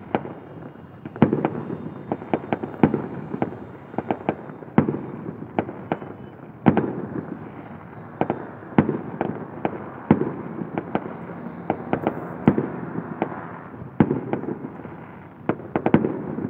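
Aerial fireworks bursting: an irregular run of sharp bangs, more than one a second, over a continuous noisy background.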